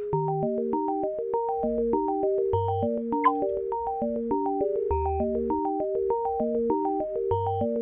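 Background music: a synthesizer tune with a fast, repeating pattern of notes over a slower bass line. A short, sharp blip rises about three seconds in.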